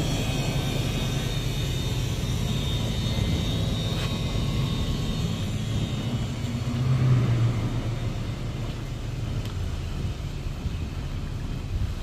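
Steady low rumble of a vehicle engine running, swelling briefly about seven seconds in, with a faint high whine that fades out around the middle.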